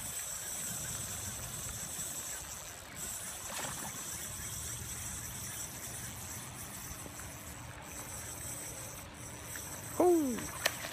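Steady outdoor background with a constant high insect buzz while a hooked catfish splashes at the surface. Near the end comes a short vocal exclamation that falls in pitch, followed by a single click.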